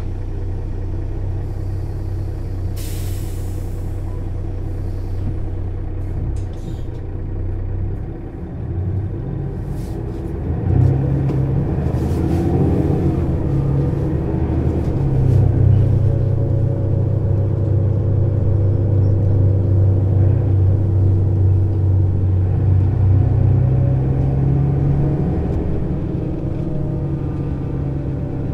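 Mercedes-Benz O 530 Citaro bus engine idling, with a short hiss of compressed air about three seconds in. About eleven seconds in the engine grows louder as the bus pulls away, and it then runs steadily under load.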